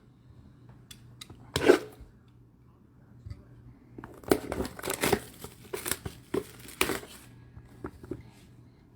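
Packaging on trading-card product being torn open and crinkled, in a run of short tearing and rustling sounds that is densest from about four to seven seconds in.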